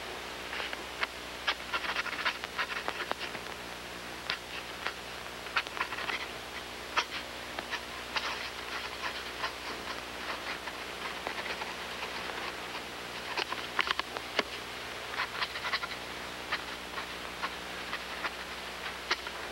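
Pen nib scratching and ticking on paper in short, irregular strokes, over the steady hiss and hum of an old film soundtrack.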